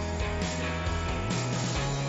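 Background music with a steady beat and a bass line that changes note about a second and a half in.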